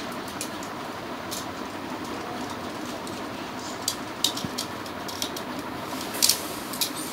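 Steady background hum, with a few sharp clicks from about four seconds in, the loudest a little after six seconds: small plastic and metal Beyblade spinning tops being handled.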